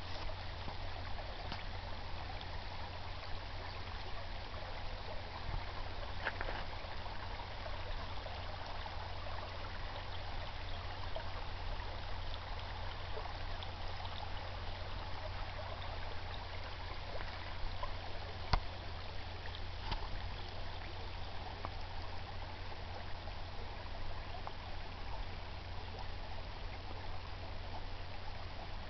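Small brook babbling, a steady rushing and trickling of water, with a constant low rumble underneath and a single sharp click about eighteen seconds in.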